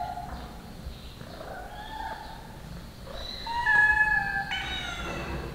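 Several domestic cats meowing, their calls overlapping and growing louder about three and a half seconds in: cats begging to be fed.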